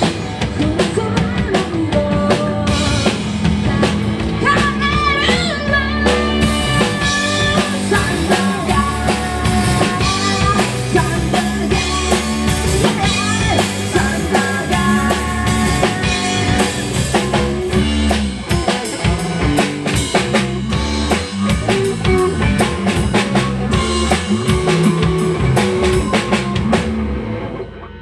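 Live band playing a loud song: a drum kit, electric guitar and a woman singing into a microphone. The song stops about a second before the end.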